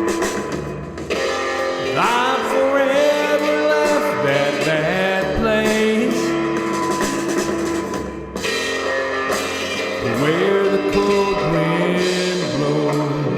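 Rock song with drum kit and guitar playing, with a melodic lead line that slides up into long held notes twice.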